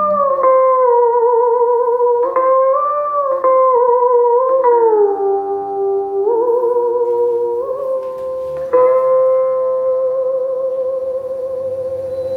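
Two đàn bầu, Vietnamese monochords, playing together in unison: sustained plucked harmonic notes that waver and bend in pitch, sliding down in steps. They end on a long note held with light vibrato from about nine seconds in.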